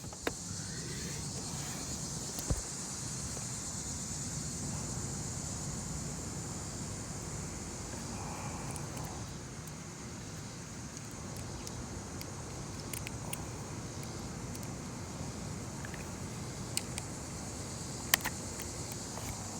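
Steady low hum and high hiss of the surroundings, with a few sharp clicks scattered through from small plastic door-trim pieces being handled and fitted back onto the door panel.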